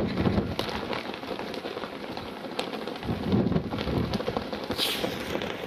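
Wind blowing across the camera microphone: a steady noisy rush with low rumbling gusts, near the start and again about three seconds in.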